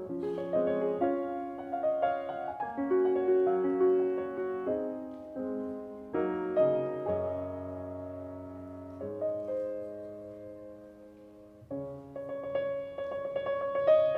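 Background music: solo piano playing a slow, gentle melody, softening for a few seconds about two-thirds through and then swelling again.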